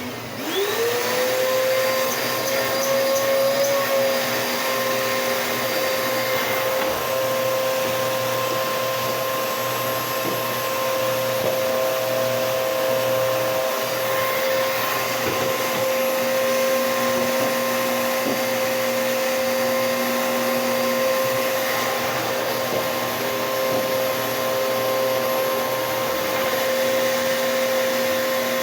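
Bissell PowerForce Bagless 6583 vacuum cleaner switched on, its motor spinning up with a rising whine, then running steadily at full speed with a constant high hum and rush of air.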